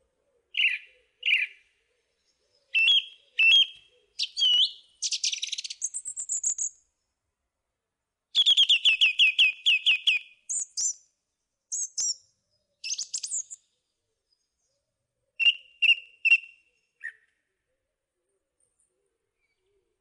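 Songbird calling and singing in separate phrases: short chirps and whistles, and about eight seconds in a fast run of about ten falling notes, with clean silence between phrases.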